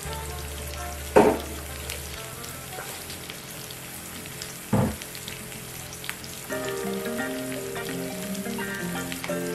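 Hot palm oil sizzling in a frying pan with onions, pepper and seasoning cooking in it, with two brief loud thumps, about a second in and near the middle. Soft background music comes in after about six and a half seconds.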